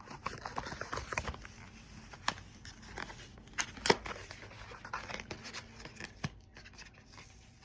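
HDMI cable packaging crinkling and crackling as it is worked open by hand, hard going with one hand, with a few sharper clicks about two and four seconds in.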